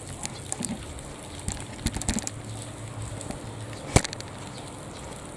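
Scattered light clicks and knocks over a faint steady hum, with one sharp click about four seconds in.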